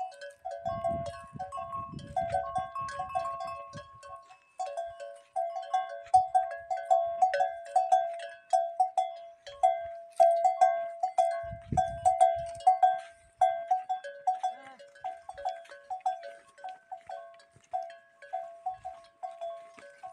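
Bells hung on walking camels' necks clanking irregularly, several ringing strikes a second in uneven runs as the animals stride.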